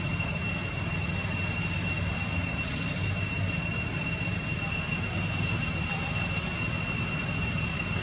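Steady background noise: a low rumble with a constant high-pitched whine held on one note throughout.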